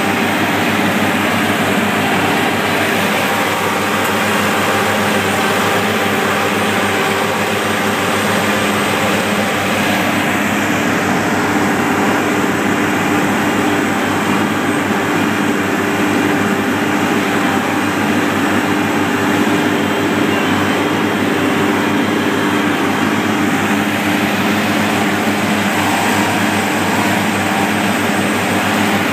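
Asphalt paver's diesel engine running steadily under working load, a loud continuous drone that holds the same pitch throughout.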